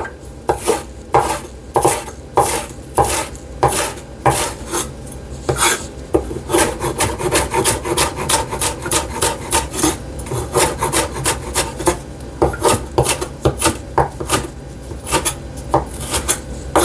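Kitchen knife chopping a green bell pepper on a cutting board: a steady run of sharp knocks, about two a second, quickening to three or four a second partway through.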